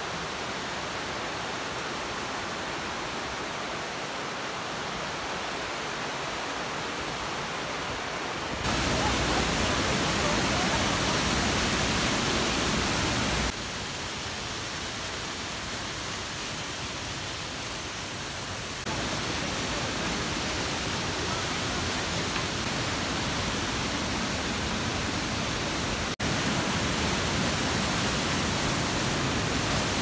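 Mountain stream rapids and a cascading waterfall: a steady, even rush of white water. The level changes abruptly several times as shots of different stretches of the stream are cut together, louder about 9 s in and again about 19 s and 26 s in.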